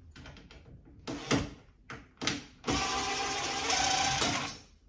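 Old metal roller drawer slide being worked free of the cabinet: two sharp clicks, then a steady metal-on-metal rasp lasting about two seconds.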